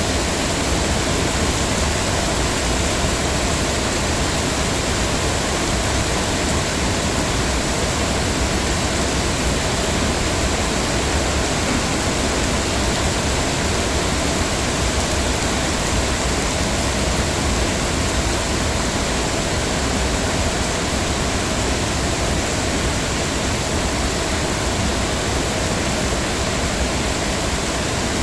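Heavy rain falling steadily, a dense, unbroken hiss of drops with no single drops standing out.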